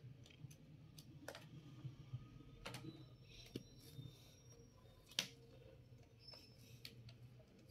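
Near silence with a few faint small clicks and handling noises as a RAM module is pressed into its motherboard slot and wiring is moved inside the open desktop case. The loudest click comes about five seconds in.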